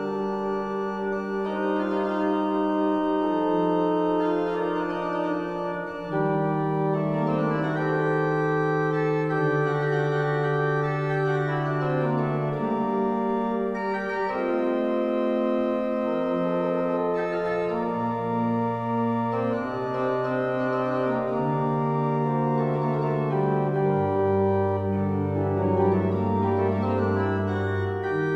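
Alexander Schuke pipe organ (1940/43) playing a slow French Baroque tierce en taille: a tenor-range solo line on a tierce registration over held accompanying chords and pedal bass notes. The bass steps lower about two-thirds of the way through and again near the end.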